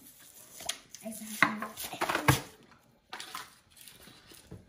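A few sharp knocks and clicks from a small plastic tub of noise putty being handled, as the putty is pushed back into it to make it fart.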